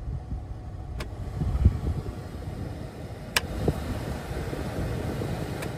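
Cabin blower fan of a 2007 Ford Explorer blowing air out of the dash vents with a steady rush over a low rumble; the fan runs on its lower speeds again with a new blower motor resistor fitted. A few sharp clicks sound over it.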